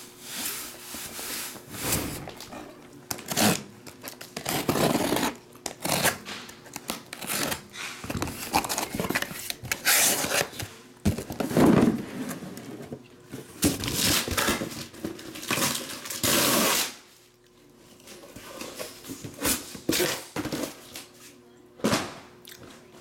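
Cardboard shipping case being opened and unpacked: packing tape tearing and cardboard and sealed boxes rustling, scraping and being set down in irregular bursts, with a brief quieter pause past the middle.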